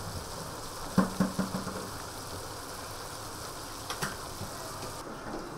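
Chunks of meat frying and sizzling in an aluminium wok-style pan, stirred with a wooden spatula. A quick run of sharp knocks from the spatula against the pan about a second in, and two more near four seconds.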